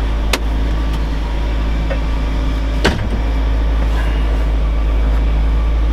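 A 6.0-litre Chevy V8 idling just after a cold start in sub-zero cold, heard from inside the cab as a steady low rumble. Two light clicks come through, one just after the start and one about three seconds in.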